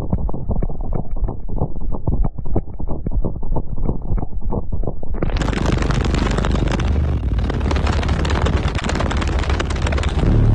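A wall of twelve car-audio subwoofers on a 36,000-watt RMS system playing very loud, heavily distorted bass. About five seconds in, a sudden harsh crackling noise that covers every pitch joins the bass and keeps going.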